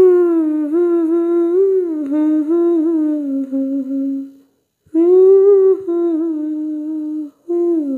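A voice humming a slow, wordless tune, in three phrases with short breaths between them about four and a half and seven seconds in.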